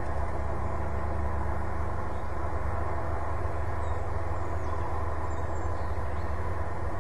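Steady low rumble with a faint hum.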